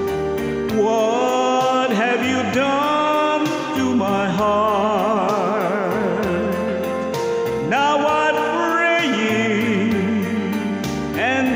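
A man singing a slow ballad with vibrato into a handheld microphone over a karaoke backing track of sustained chords.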